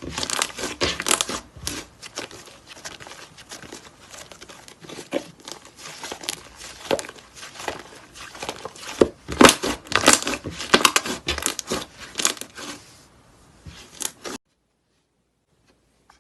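Slime being squeezed and stretched by hand, giving a dense crackling of small pops and tearing sounds, louder in clusters; it cuts off suddenly near the end.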